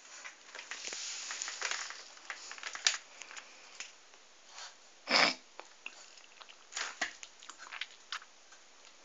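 Bull terrier scuffling and sniffing at its reflection in a mirror on a tiled floor: scattered clicks and scrapes, busiest in the first two seconds, with one louder burst of noise about five seconds in.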